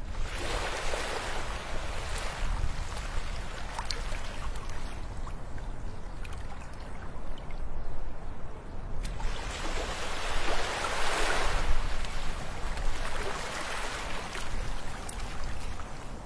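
Small sea waves washing up onto a sand beach, a steady surf hiss that swells twice: near the start and again about ten seconds in.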